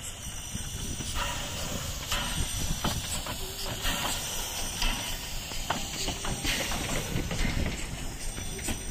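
Narrow-gauge steam locomotive passing slowly at close range, hissing steam, with short regular beats about twice a second.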